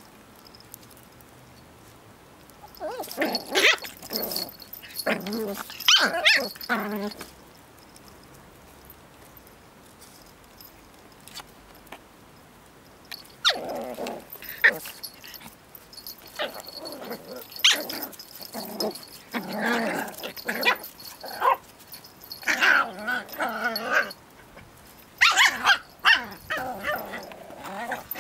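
Two puppies play-fighting over a twig, growling and barking in bursts: a few seconds in, then after a pause again, almost without a break, from about halfway on.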